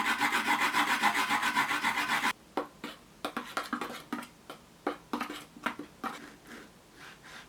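Onion being grated on a grater: fast, even rasping strokes, about five a second, that stop abruptly a little over two seconds in, followed by a few scattered, fading scrapes and taps.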